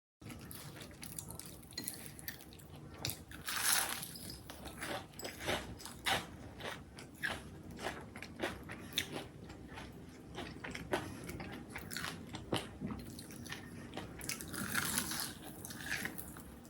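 A person biting into and chewing crunchy food close to the microphone: repeated crisp crackles and crunches, with denser bursts of crunching twice.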